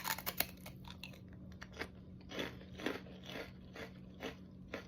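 Someone biting into a thin sugar-drizzled rice cracker, a cluster of sharp crunches right at the start, then chewing it with scattered crunches.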